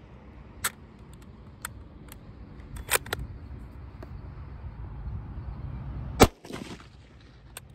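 8mm Mauser bolt-action rifle: a few sharp metallic clicks as the bolt is worked and a round chambered, then a single loud gunshot about six seconds in, firing 1975 Romanian surplus steel-cased ammunition, with a brief ringing echo after it.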